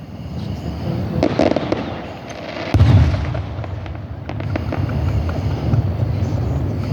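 Aerial fireworks bursting: several booms over a low rolling rumble with crackling, the loudest boom almost three seconds in.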